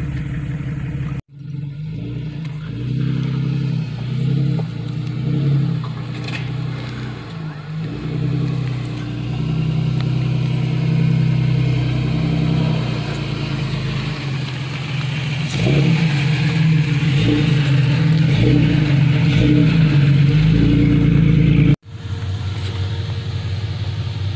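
Jeep Cherokee XJ engine revving unevenly as the SUV crawls over rocks, its pitch rising and falling with the throttle, louder in the second half.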